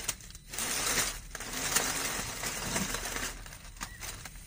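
Dry fallen leaves crackling and rustling under the tyres of an RC rock crawler as it climbs over them, in a few bursts with short pauses.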